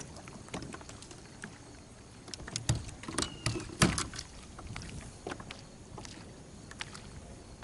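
Irregular knocks and clatter against a fishing kayak as an angler fights a bass to the side of the boat and reaches down for it, the loudest knocks coming about three to four seconds in, with a brief squeak among them.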